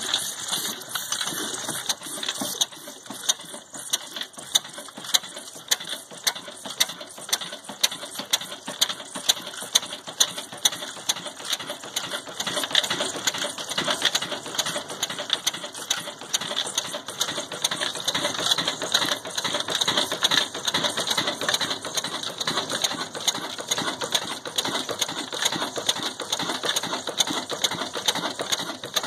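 Old Ruston Hornsby horizontal diesel engine running at a steady speed, its flywheel turning and flat belt drive working. The sound is an even mechanical clatter of ticks, with a sharper knock about once a second.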